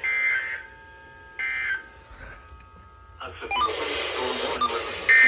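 Emergency Alert System digital data bursts: two short, shrill two-tone warbling bursts about a second and a half apart, the end-of-message code that closes the warning. From about three seconds in, noisy radio broadcast audio comes up, and a longer data burst starts near the end, the header of the next alert.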